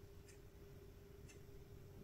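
Near silence: a clock ticking faintly once a second over a steady faint hum.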